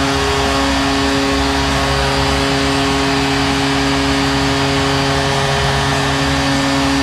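Arena crowd cheering a goal, with a goal horn sounding steadily over the roar.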